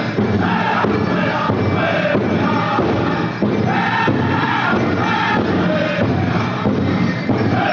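Powwow drum group singing a chicken dance song: several voices chanting together over a steady, even beat on a large drum.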